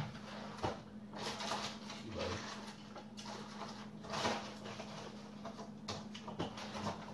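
Handling noise of someone rummaging for a small object: scattered light knocks, clicks and rustles, over a faint steady low hum.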